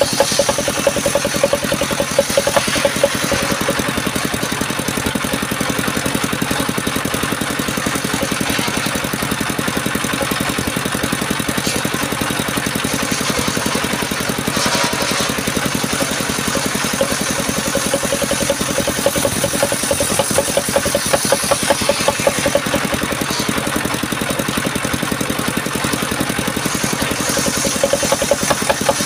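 Engine of a mobile circular sawmill running steadily, with a fast, even firing pulse throughout.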